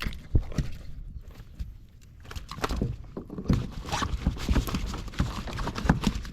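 A string of irregular light knocks and taps on a kayak as a just-landed flounder and the tackle are handled, thickening about halfway through.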